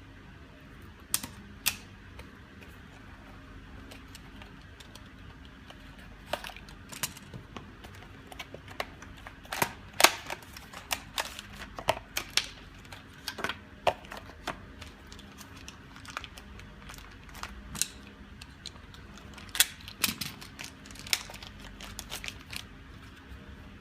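Irregular sharp clicks and taps of small tools and plastic parts on a laptop's case as it is taken apart, a couple near the start and then many in quick, uneven runs. A faint steady low hum lies underneath.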